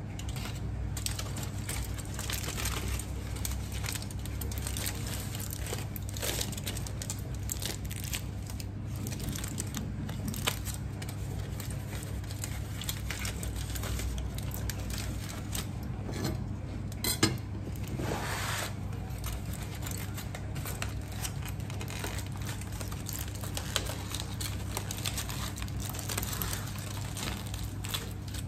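Irregular rustling, crinkling and light clattering handling noises over a steady low hum, with a sharp click about 17 seconds in.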